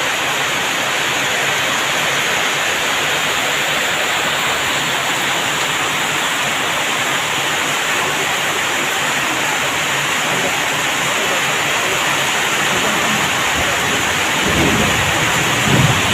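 Heavy rain falling steadily, a dense even hiss of rain. Near the end a low rumble swells in underneath.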